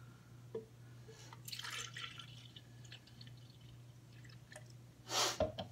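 Unsweetened almond milk being poured into a container, heard as faint liquid trickling and dripping with a few small clicks, and a brief louder noise about five seconds in.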